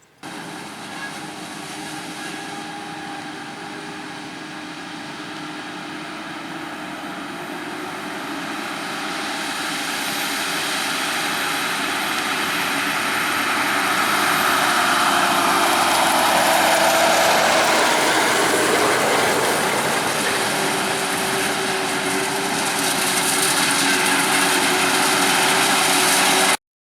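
Heavy diesel farm machinery running and growing louder, with an engine tone that drops in pitch partway through, then cutting off abruptly near the end.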